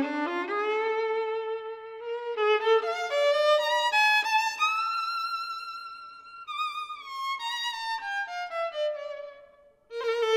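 Violin playing a slow, sad melody with vibrato. The line climbs to a high note about four seconds in, steps down through a falling phrase and fades away, then a new phrase begins near the end.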